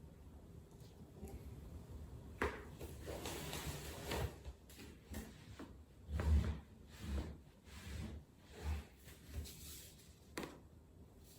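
Joint cracking: a sharp pop about two seconds in and another near the end, with a run of dull thuds and rubbing from body movement in between.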